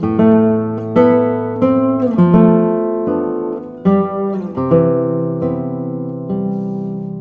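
Background music: an acoustic guitar playing plucked notes and chords, about one a second, each ringing and fading.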